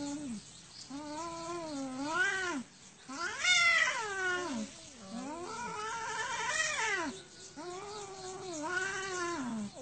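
Two domestic cats yowling at each other in a fight standoff: a series of long, wavering caterwauls, one after another, each rising and falling in pitch, the loudest and highest about three and a half seconds in.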